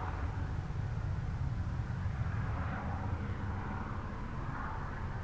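Helicopter flying over: a steady low drone, with a fainter higher whine that swells and fades a few times.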